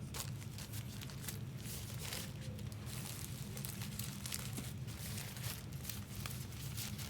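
Thin foil trading-card pack wrappers crinkling and crackling in short irregular bursts as they are handled, over a steady low hum.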